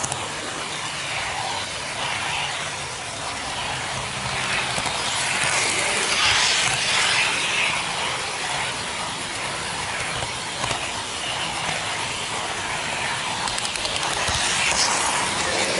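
N gauge model train running steadily along its track, heard from a camera riding on it: a constant mechanical hiss with a faint low motor hum and small clicks from the wheels and mechanism.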